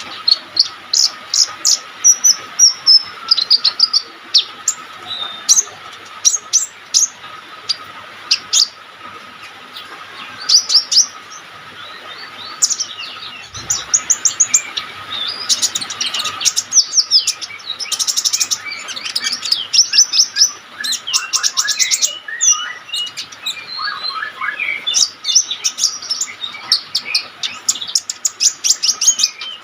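Olive-backed sunbird (kolibri ninja) singing vigorously: a continuous run of sharp, high chirps and fast twittering trills. A faint steady whine sits underneath.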